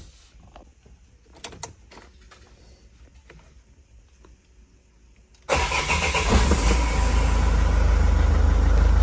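A few faint clicks, then about five and a half seconds in the 2006 Vauxhall Vivaro van's engine starts and settles into a steady idle on its freshly fitted battery.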